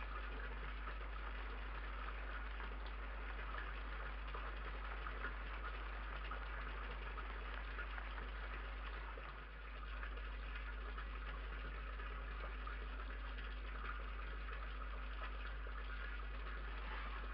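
Steady background hiss with a constant low hum underneath and no distinct sounds from the animals.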